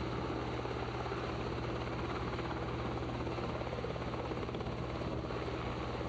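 Helicopter running steadily, heard from on board: a constant drone of engine and fast rotor chop.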